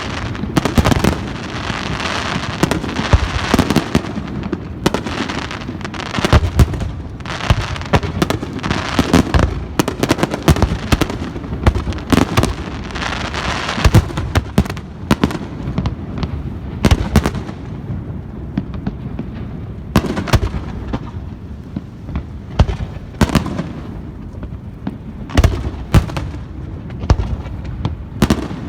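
Aerial fireworks display: a rapid barrage of bangs over dense crackling for about the first half, thinning later to separate sharp bangs a second or more apart.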